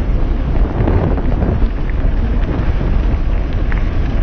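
Loud, steady wind buffeting on a helmet-mounted GoPro microphone as a mountain bike rolls along a dirt trail, with the rumble of tyres on dirt and a few faint ticks of the bike rattling.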